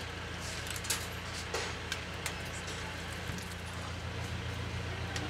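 Swajal water vending machine dispensing water into a plastic bottle held under its spout, over a steady low machine hum. A few light clicks and knocks come between about one and two and a half seconds in.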